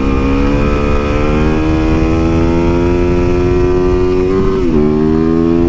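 Dual-sport motorcycle engine pulling under throttle through a wheelie, its pitch climbing steadily for about four and a half seconds, then dipping briefly near the end and picking up again.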